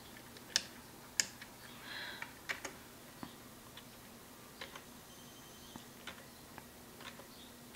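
Computer keyboard keys tapped one at a time: a scattered, irregular series of light clicks, with two sharper ones about half a second and a second in.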